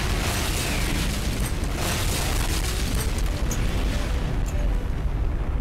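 Cartoon explosion sound effect: a blast that starts suddenly and carries on as a long, steady low rumble, its hiss dying away near the end.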